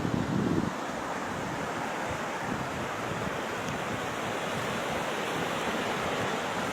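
Steady rush of sea surf on a shore, with wind buffeting the microphone, heaviest in the first moment.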